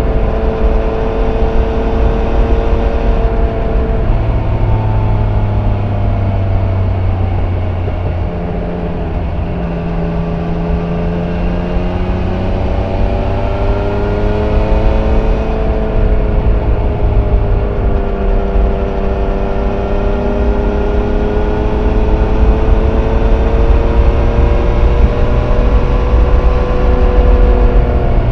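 Yamaha Niken GT's 847 cc three-cylinder engine with stock exhaust, heard on board while riding. Its pitch drops about four seconds in, then climbs and eases off gently with the throttle.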